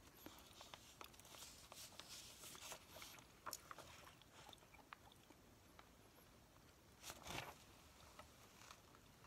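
Faint paper handling and a pencil writing on a small notepad laid over newspaper grocery circulars, in soft scattered clicks and rustles, with one louder brush of paper about seven seconds in.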